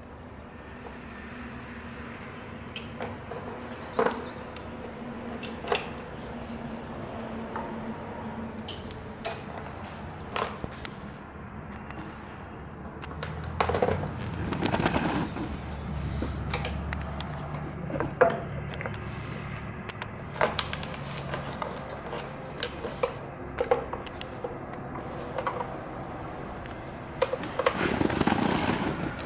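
Hand tools and metal parts clicking and knocking irregularly as a carburetor and air-filter box are taken off a GY6 go-kart engine, with a louder clattering stretch about halfway through and again near the end.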